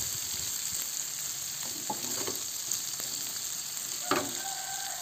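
Dried anchovies, chilies, shallots and garlic sizzling in a metal wok while a metal spatula scrapes and stirs them, at the stage of sautéing until fragrant and cooked. About four seconds in, the spatula knocks the wok and it rings briefly.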